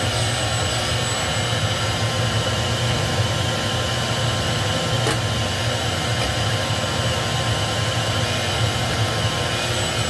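Shop vacuum running steadily, sucking loose sandy soil up through a 2-inch conduit that is being pushed horizontally into the ground as a makeshift drill.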